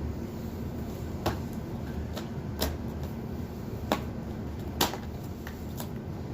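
A few light, sharp clicks and taps, about six spread unevenly, from the cardboard and plastic of an advent calendar being handled, over a steady low hum.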